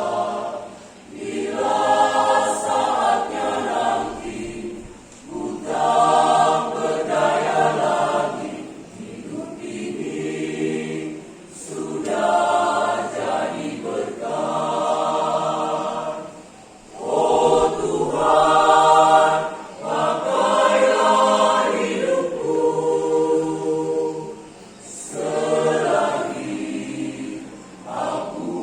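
A choir singing an Indonesian Christian song in several voices. The phrases last a few seconds each, with brief breaks for breath between them.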